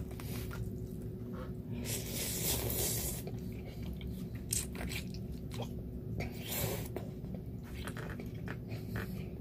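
A person slurping noodles out of a soup and chewing them, with a long slurp about two seconds in and shorter slurps later.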